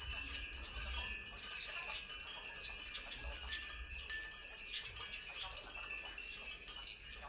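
Small metal or glass objects tinkling and clinking without a break over a low rumble, typical of loose and hanging items rattling while a building shakes in an earthquake.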